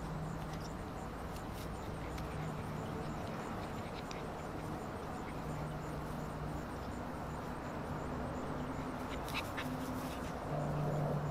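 Six-week-old Alaskan Malamute puppies playing and making small puppy sounds, over a steady low hum. A few short clicks come near the end.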